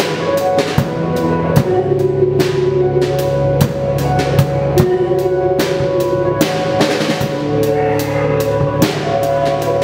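Improvised live band music: a drum kit played busily, with frequent drum and cymbal hits, over held keyboard notes that shift every second or two.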